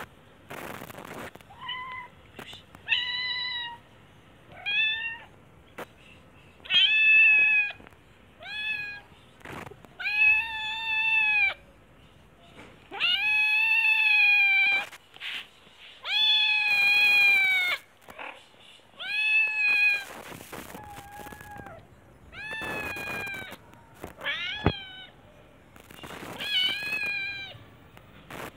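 Calico kitten meowing over and over: about a dozen high-pitched meows, some short and some drawn out for a second or more.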